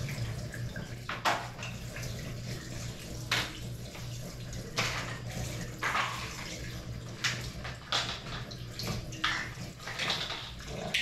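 Kitchen tap running into a sink while raw chicken pieces are rinsed under it, with irregular splashes and clunks about every second, over a steady low hum.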